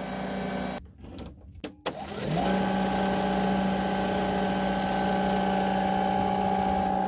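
Snapper XD 82-volt battery snowblower's electric motor and plastic auger running unloaded with a steady whine. The sound cuts out about a second in, then spins back up with a short rising whine and runs steadily again, very quiet for a snowblower.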